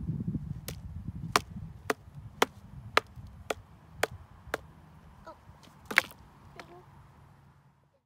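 A wooden stick striking wood, with sharp knocks about twice a second and one louder knock about six seconds in. A low rumble underneath fades out.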